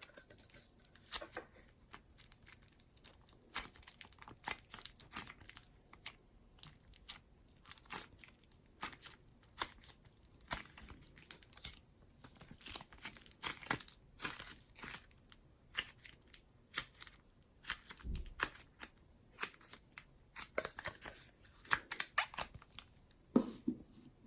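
Slime being handled, pressed and stretched by hand, making irregular soft sticky crackles and clicks.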